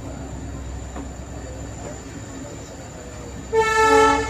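Steady low rumble of a train, then a short, loud horn blast on one pitch about three and a half seconds in, lasting under a second.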